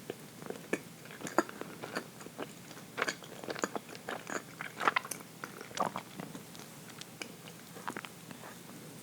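Close-up chewing of rich chocolate cake: a run of short, moist mouth clicks and smacks, busiest in the middle.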